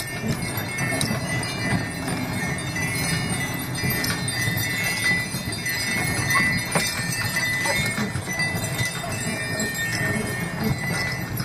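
Sleigh bells on a horse's harness jingling continuously as a draft horse pulls a sleigh over snow, with the horse's footfalls underneath.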